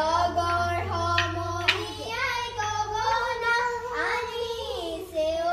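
A high voice singing, holding notes and sliding between pitches, over a low hum that fades out about halfway through.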